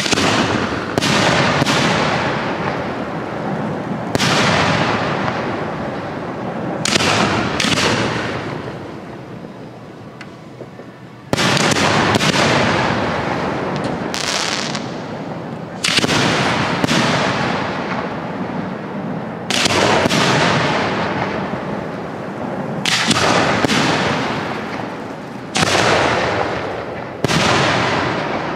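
Professional 1.3G display fireworks: aerial shells bursting one after another, each sharp bang trailing off in a long rolling echo. There are about fifteen booms, often in close pairs, with a lull of a few seconds a little before the middle before they pick up again.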